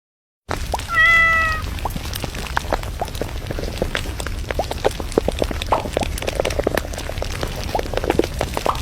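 Domestic cat giving one short meow about a second in, followed by a run of quick clicks and pops over a low steady hum.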